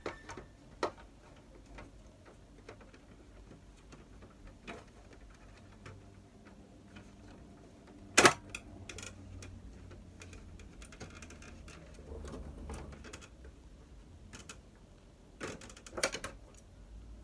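Scattered clicks and knocks of a Samsung ML-1660 laser printer's plastic housing and metal frame being handled, with one sharp knock about eight seconds in and a quick cluster of clicks near the end.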